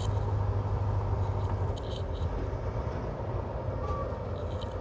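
Vehicle engine running steadily, heard from inside the cab as a low, even hum, with a few faint clicks about two seconds in and again near the end.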